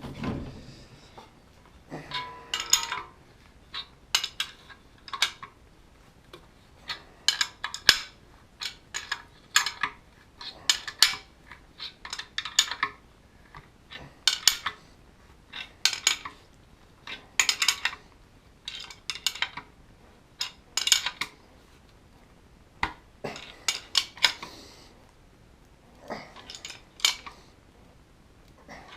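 Repeated short metallic clicking and clinking, in irregular bursts about once a second, as the screw of a metal-door latch pocket tool is turned down by hand to press a latch pocket into the door edge.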